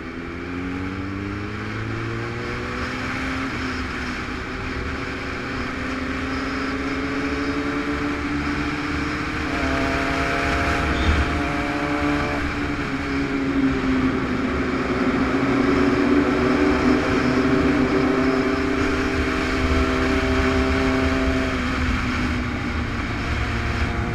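Motorcycle engine running under way with steady wind rush, its note climbing slowly and easing back. A second, higher engine note joins for about three seconds in the middle.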